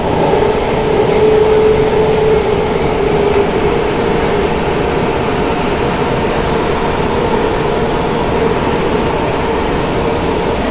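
Inside an SMRT C151 metro train carriage while the train runs between stations: steady running noise of the car. A steady whine is clearest over the first three seconds or so, then fades into the noise.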